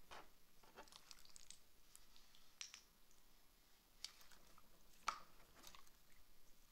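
Faint wet clicks and squelches of slime being squeezed and mixed by hand, with a few sharper pops scattered through.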